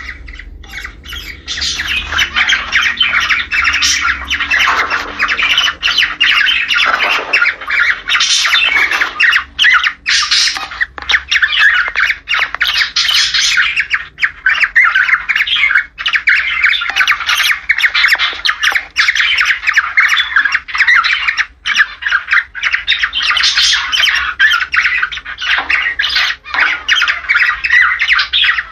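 Cockatiels chattering and squawking in a dense, unbroken stream of short calls and whistles. These are breeding-season mating calls.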